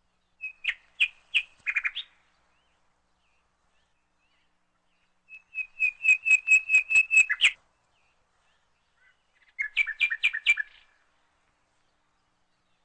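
A bird chirping in three bursts of quick, high, repeated chirps, each lasting one to two seconds, with silence between them.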